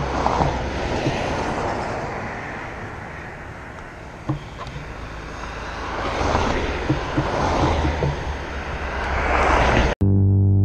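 Wind rushing over a bicycle-mounted action camera, with tyre and road rumble, as cars swell past and fade a few times. Near the end it cuts off abruptly and synth-piano music begins.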